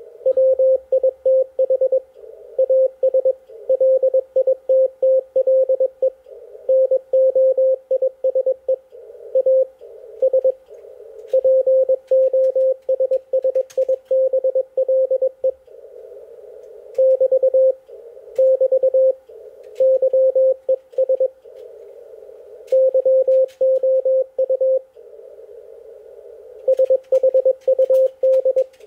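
Morse code on an HF ham radio transceiver: a single mid-pitched tone keyed on and off in dots and dashes throughout, with a soft hiss of band noise in the gaps between characters.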